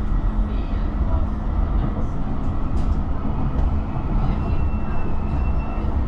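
Bergen light rail tram running along its track, heard from inside the passenger car as a steady low rumble. A faint high whine comes in about four and a half seconds in and lasts just over a second.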